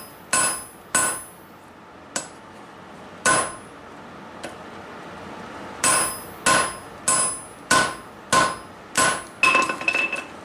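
Blacksmith's hand hammer striking the hot end of a steel bar on an anvil to upset it, each blow ringing briefly. Two blows, two more scattered ones, then from about six seconds in a steady run of blows a little over half a second apart, ending in a few quicker, lighter hits.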